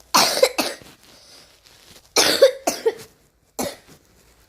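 A sick child coughing, about five harsh coughs in three bouts: two at the start, two about two seconds in, and a last one near the end. It is a chesty cough that comes with his fever.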